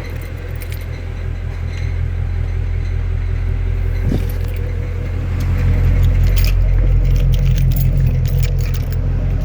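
Shelby GT350's V8 running with a steady low drone that grows louder about halfway through, while light metallic rattling and clicking sound over it: the odd noise the owner is recording.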